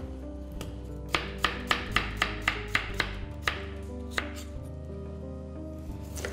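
Chef's knife slicing a raw potato and striking a plastic cutting board: a quick even run of chops about four a second from about a second in, then a few slower strikes.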